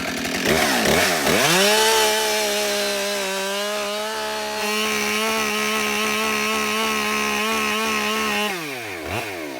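Husqvarna 572 XP two-stroke chainsaw at full throttle, plunging its bar straight into a tree trunk in a bore cut. The engine pitch dips and climbs in the first second or so, holds high and steady under the cut, then drops back toward idle near the end as the throttle is released.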